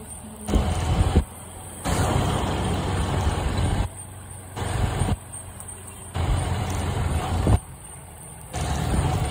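Riding noise from a motorcycle moving through town traffic: wind rush and the bike's engine running, a dense low rumble. It cuts out abruptly to a much quieter level five times and comes back each time.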